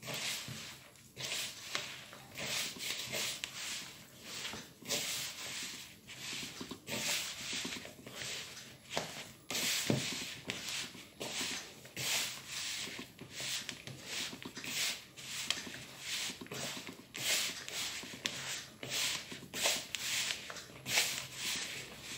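Hands rubbing warm fat into flour in a plastic mixing bowl: irregular rustling, gritty strokes, one or two a second, as crumbly pastry dough is worked between the palms.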